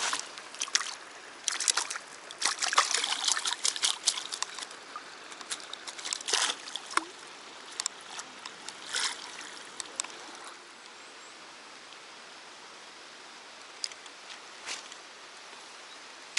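Water splashing and sloshing in irregular bursts for about ten seconds, then dying away to a steady faint hiss.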